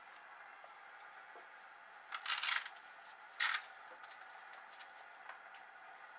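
Zip on a padded equipment carry case being pulled open in two short raspy runs, the second about a second after the first, with a few light handling clicks.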